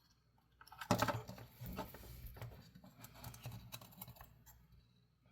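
Small hard objects being handled on a workbench: a sudden knock about a second in, then irregular clicks, clatter and rustling, tapering off near the end.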